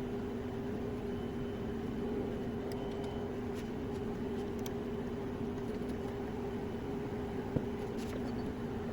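A machine's electric motor running steadily: an even hum with two steady tones over a wash of noise, with a faint click about three-quarters of the way through.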